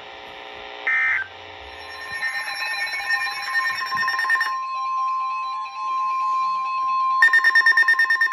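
Emergency Alert System signalling tones between two alert messages. Two short screeching data bursts come near the start, marking the end of the previous message. A steady single-pitch alert tone sounds in the middle, and a loud, rapidly pulsing warbling tone starts near the end.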